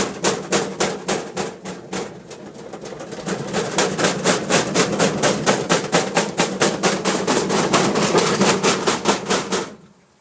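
10 kg washing machine in its spin cycle, the drum banging in a fast, even rhythm of about four knocks a second before stopping suddenly near the end: the violent spin-cycle knocking of a fault the maker later fixed by replacing parts under warranty.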